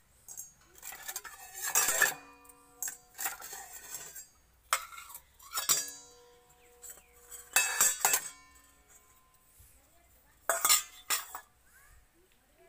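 Stainless steel bowls clanking together as a toddler handles and stacks them: about five bursts of clinks, each leaving a short metallic ring.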